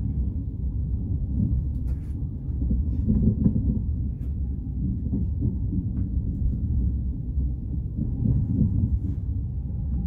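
Low, steady rumble of a passenger train in motion, heard from inside the carriage, with a few faint clicks and rattles.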